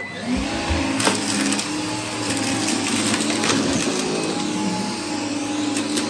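Gtech AirRam K9 Mk2 cordless upright vacuum cleaner running steadily as its brush bar sucks up a pile of dry debris from carpet. Scattered ticks and crackles of particles rattle through the machine over the motor hum.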